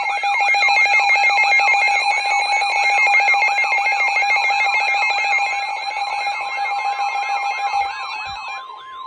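Emergency weather alert tones: a fast warbling alarm tone, about three sweeps a second, layered over steady high beeping tones, signalling an incoming severe thunderstorm warning. Near the end the steady tones drop out, leaving the warble and a single steady tone.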